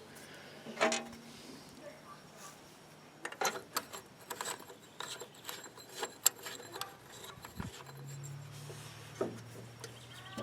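Scattered light clicks and taps of hand tools on small metal parts, a few a second for a while, as one end of a bar is taken off a winch solenoid pack, with a faint low steady hum near the end.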